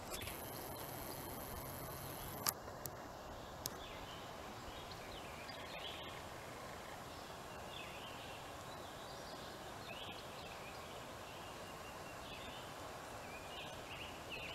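Faint woodland ambience with short, scattered bird calls every second or two over a steady hiss. A sharp click sounds about two and a half seconds in, and a softer one a second later.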